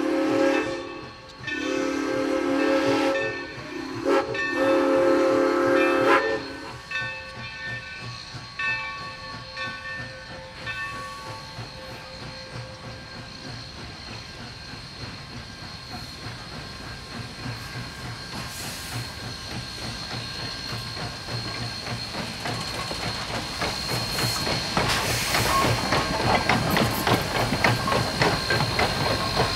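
Steam locomotive's chime whistle blowing three blasts for a grade crossing, the last two long. Then the locomotive and its coaches roll past, steam hissing and wheels clicking over the rails, growing louder near the end.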